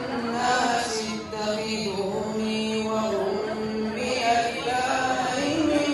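A man's voice chanting a melodic song into a microphone, with long held, wavering notes.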